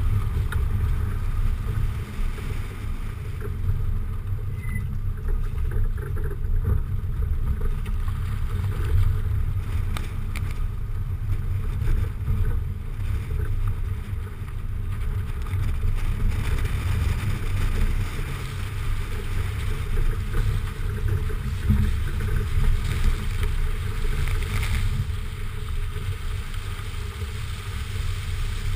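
Car driving along a wet, muddy lane, heard from a camera mounted on the outside of the car: a steady low rumble of wind buffeting the microphone over tyre and road noise.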